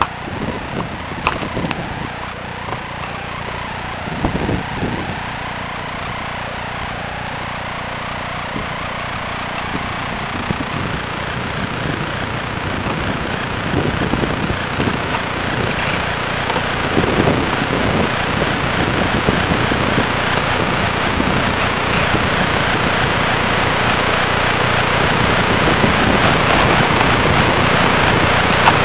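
Onboard recording of a Parkzone Spitfire electric RC plane in flight: the motor and propeller buzz under a steady rush of wind over the camera's microphone, growing steadily louder.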